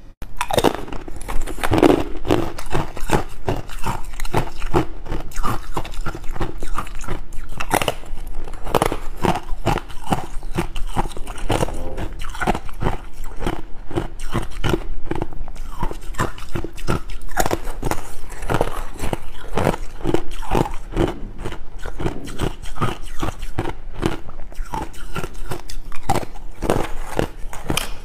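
Close-miked biting and chewing of thin yellow ice discs: dense, crackling crunches of hard ice breaking between the teeth, several a second throughout.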